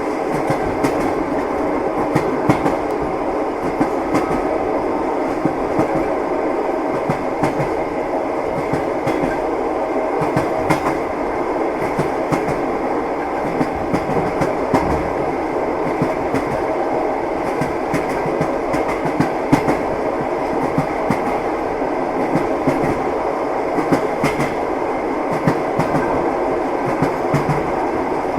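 Train running at speed: a steady rumble with the wheels knocking in frequent sharp clicks as they pass over the rail joints.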